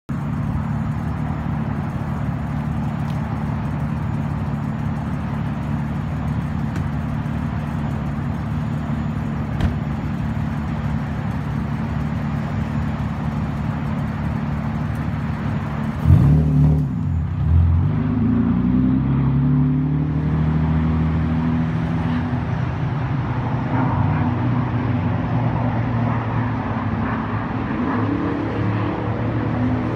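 Straight-piped 2005 Nissan 350Z 3.5-litre V6 (muffler delete, resonator-less midpipe) running at a steady engine speed. About halfway through it gives a sudden loud burst of revs, then runs on louder under throttle.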